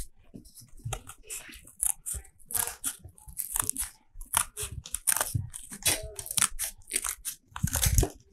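Scissors snipping through thin card, an irregular run of short crisp cuts.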